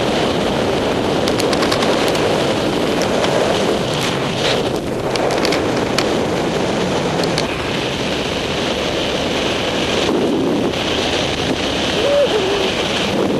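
Airflow rushing steadily over the microphone of a camera carried by a paraglider pilot in flight, with scattered small clicks in the first half.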